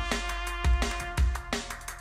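Instrumental breakbeat music with held brass-like tones and a heavy kick drum landing about every half second, played back through a pair of JBL 306P MKII studio monitors and picked up by a microphone in the room.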